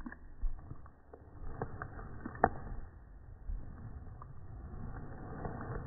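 A pug chewing and gnawing a chew bone, the audio slowed down: low, wet smacking and scraping with several sharp clicks of teeth on the bone, the sharpest about two and a half seconds in.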